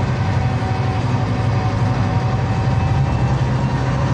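Scania Citywide LE 12M city bus heard from inside the passenger cabin while driving: a steady low engine drone with tyre and road noise, and a faint steady higher whine over it.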